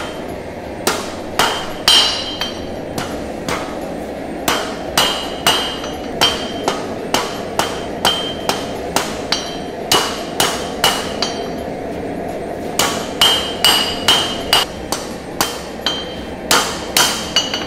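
Blacksmith's hammer striking red-hot 1095 carbon steel on an anvil to forge out a knife blade, about two blows a second with a couple of short pauses. Each blow has a brief metallic ring, over a steady rushing noise underneath.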